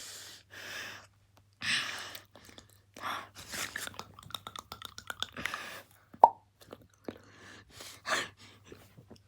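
A person making mouth noises: breathy huffs and puffs, a quick run of lip and tongue clicks, and a sharp pop about six seconds in.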